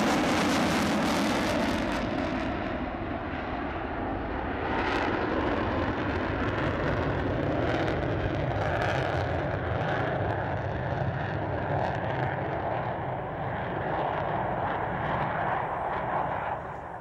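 Jet noise from a pair of F-14B Tomcats' General Electric F110 turbofan engines passing in a formation break. The roar is loudest and harshest at first, loses its hiss after about two seconds, and carries on as a steady rumble until it drops off at the very end.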